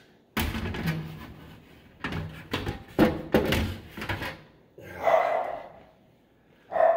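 Sheet-metal blower housing knocking and scraping against the air handler's slide rails as it is worked into the cabinet: a sudden clunk, then a quick run of sharp knocks and rattles, and a drawn-out higher sound about five seconds in.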